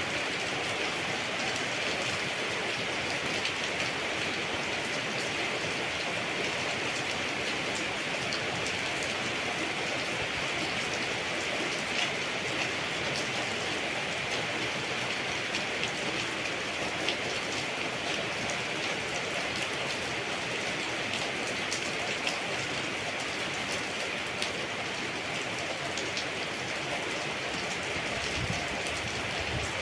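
Steady rainfall in a tropical garden, a continuous even hiss with scattered sharper drop hits ticking through it.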